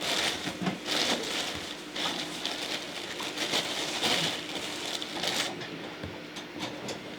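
Packaging rustling and crinkling as it is handled, in irregular bursts, over a faint steady hum.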